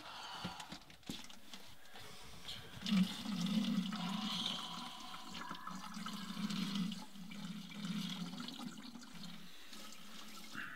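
A stream of urine running into a plastic Gatorade bottle. It starts about three seconds in after a little faint handling noise, goes on steadily for about six seconds as the bottle fills to the top, and tails off near the end.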